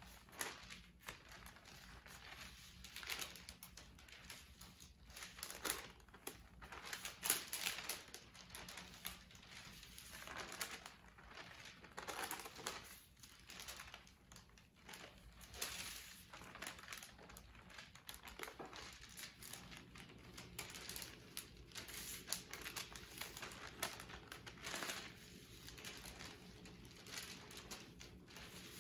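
Kraft paper crinkling in irregular bursts a second or two apart as its corners are lifted to roll granulated black powder fuel over itself: diapering, which mixes titanium into the powder.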